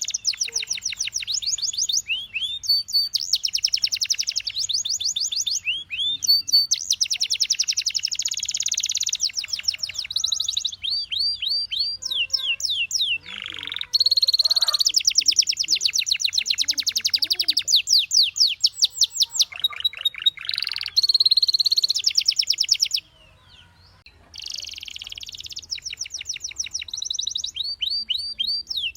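Domestic canary singing a long, continuous song of fast trills, each phrase a rapid run of repeated notes, some held at one pitch and some sweeping down. The song breaks off for about a second and a half roughly 23 seconds in.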